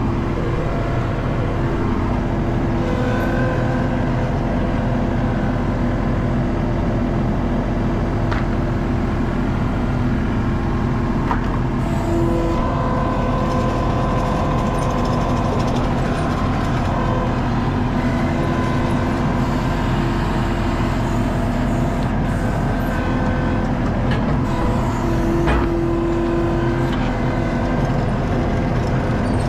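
ASV skid steer's diesel engine running steadily, heard from inside the cab as it works with loaded pallet forks, with steady whining tones that grow louder a few times.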